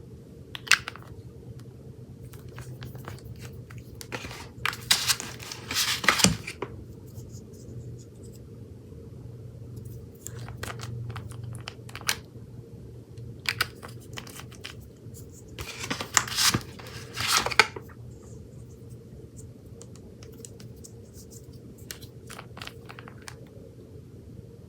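Close-up handling noises: scattered clicks and two longer bursts of crackling and scraping, about five seconds in and again about sixteen seconds in.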